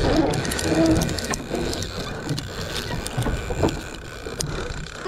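Noise aboard a small fishing boat: a low, continuous rumble with many irregular clicks and knocks over it.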